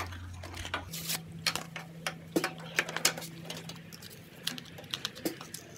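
Irregular small clicks and crackles of a plastic blister pack and card backing being handled and pried open to free a fidget spinner, over a faint steady hum.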